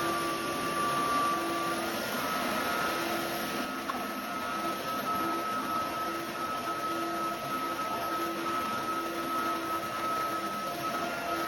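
Roborock F25 Ultra wet-dry floor vacuum running steadily, a steady whine over its motor and brush-roll noise. The whine sits slightly lower at the start and steps back up about two seconds in.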